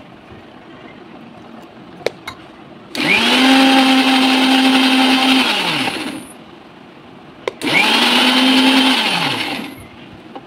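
Electric mixer grinder grinding fresh coconut and fried onion to a thick paste in two short pulses. Each time the motor spins up to a steady hum, runs for two to three seconds and winds down. The first run is the longer. A click comes before each run.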